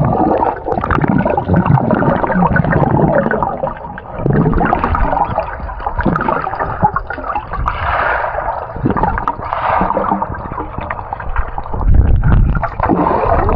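Water splashing and gurgling close to the microphone, with a heavier low rumble about twelve seconds in.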